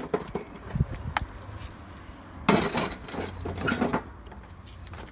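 Lit charcoal briquettes clinking and scraping against a ceramic plate and the metal barbecue as they are picked up and moved. A few light clinks come first, then a louder scraping rattle about two and a half seconds in and a shorter one about a second later.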